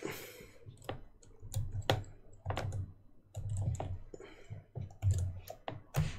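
Typing on a computer keyboard: irregular key clicks, each with a low thud as the key bottoms out.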